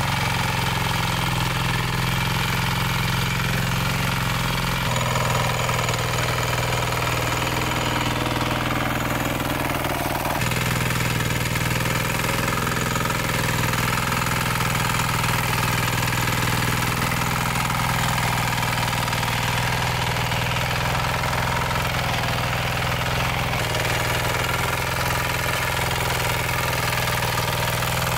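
An engine running steadily at an even speed, its tone changing abruptly a few times.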